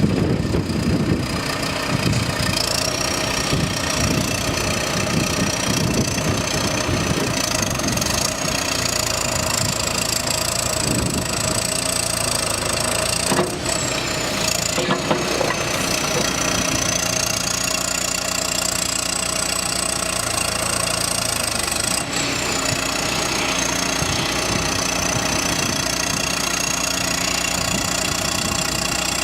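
2008 John Deere backhoe's diesel engine running steadily, with a high whine above it that slowly rises and falls in pitch.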